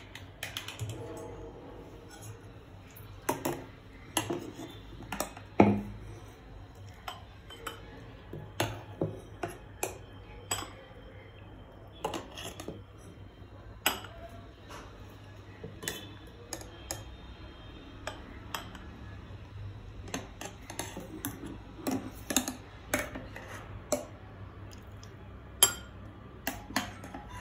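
Steel ladle clinking and scraping against a steel pot and glass tumblers while thick lassi is scooped and poured: many short, irregular clinks and taps.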